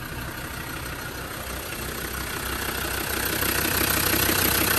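Land Rover Defender TD5 2.5-litre five-cylinder turbodiesel idling steadily at running temperature. It grows louder from about halfway through, as it is heard more closely from the open engine bay.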